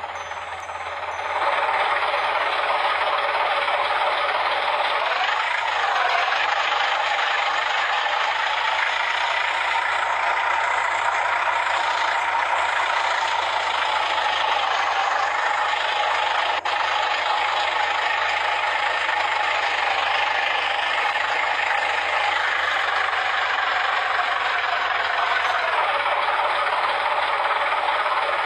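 Heavy road-paving machinery running steadily with a rattling mechanical noise and a whine that rises in pitch about five seconds in, holds, and drops back near the end.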